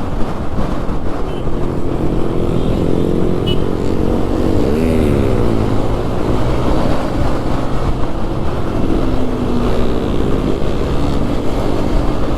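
Single-cylinder motorcycle engine running under way, with wind and road noise. About five seconds in, the engine note dips and rises again as the throttle is eased off and reopened.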